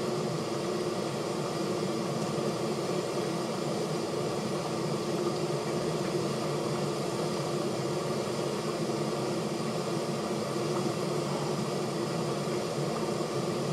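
Steady background hum and hiss: an even mechanical drone that does not change, with no other events.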